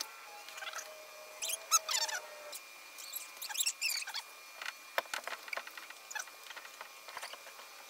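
Cast-iron steering box parts of a 1948 Willys truck being handled on a workbench: irregular small metal clicks and knocks, the loudest about two seconds in, mixed with short squeaks whose pitch slides up or down.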